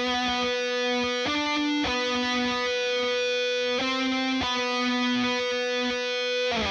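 Overdriven electric guitar lead solo played through a Celestion G12-50GL Lynchback speaker in a 1x12 cabinet, recorded dry with no EQ or compression. Long held notes, some with vibrato, changing pitch every second or two.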